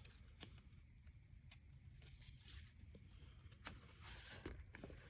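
Near silence with a few faint, sharp clicks and light handling noise from plastic LEGO pieces being fitted together.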